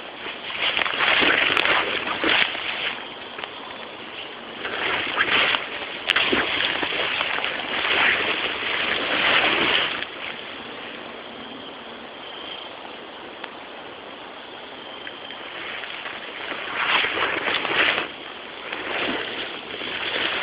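Swishing and rustling of tall grass brushing against legs and the camera while walking through a meadow. The noise swells and eases irregularly, is quieter in the middle, and grows louder again near the end.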